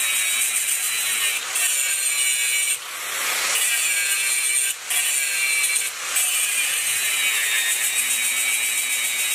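Angle grinder's abrasive disc grinding the edge of a steel spanner to shape a knife blade: a steady, high-pitched grinding that dips briefly several times.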